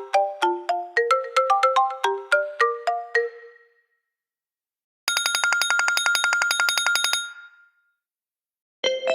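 iPhone ringtones played one after another. A quick run of melodic notes fades out about a third of the way in, then after a short silence a fast-pulsing ring sounds for about two seconds, and a new ringtone starts near the end.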